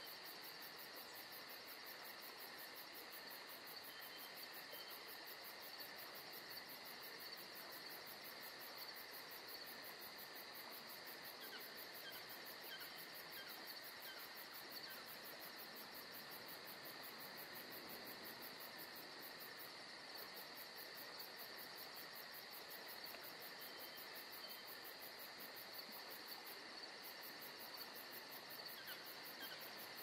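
Faint, steady chorus of crickets trilling at night, several insects at different pitches sounding together without a break.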